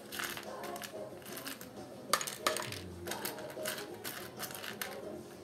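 Small plastic building-block pieces clicking and rattling as they are handled and pressed together, with two sharper clicks about two seconds in, over faint background music.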